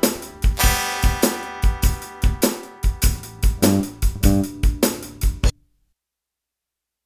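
Instrumental ending of a song: a drum kit with kick drum, snare and cymbals beating steadily over held instrument chords, then the music stops abruptly about five and a half seconds in, leaving silence.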